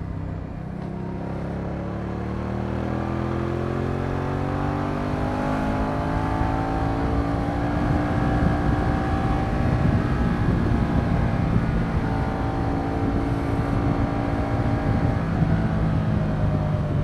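Moto Guzzi V100 Mandello's transverse V-twin engine pulling under way, its pitch rising steadily for several seconds as the bike accelerates. It then holds and eases off a little near the end, over wind and road rumble.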